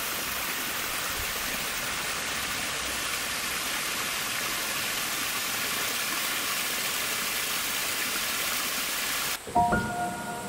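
Steady rush of flowing water, an even hiss cut in and out abruptly. Near the end it stops and a few held musical tones begin.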